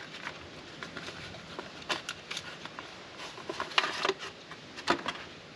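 Light clicks, taps and rustles of hands handling a tube of Moto Seal gasket sealant and small engine parts on a workbench, with a sharper click about four seconds in and another near five seconds.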